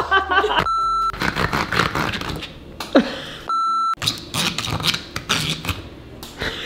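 Two short beeps edited into the track, one steady tone each time and each about half a second long, the first about a second in and the second near four seconds in. Between and around them come rubbing and knocking as a silicone tube garlic peeler with a garlic clove inside is rolled under the hand on a countertop.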